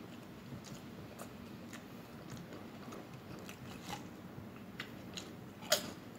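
Close-up eating sounds of a man chewing a mouthful of sloppy joe sandwich: scattered wet smacks and clicks, the loudest one near the end.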